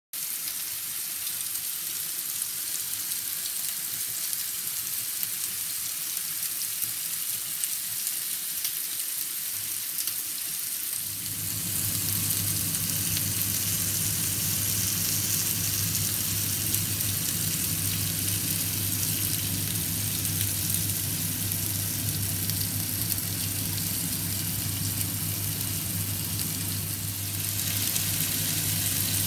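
Chicken thighs and steaks sizzling on a ridged grill plate, a steady crackling hiss of frying meat. About eleven seconds in, a steady low hum joins it.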